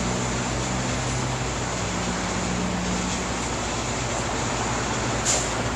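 Street traffic noise: a steady rush with a vehicle's low engine hum that fades a few seconds in, and a brief sharp click near the end.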